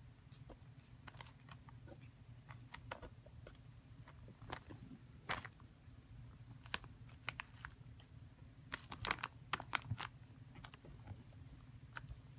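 Cats scuffling on a mattress: irregular faint clicks and scratches of paws and claws catching on the fabric, bunched about five seconds in and again between nine and ten seconds, over a low steady hum.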